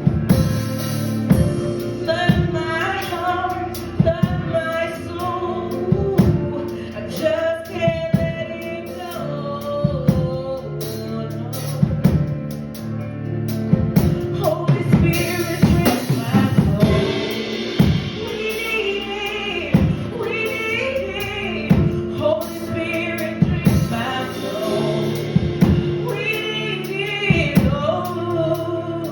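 Live gospel worship song: singing over a backing band, with a drum kit keeping a steady beat.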